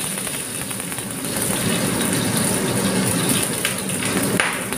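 Chopped garlic and onion sizzling in hot olive oil in a wok, a steady crackling fry.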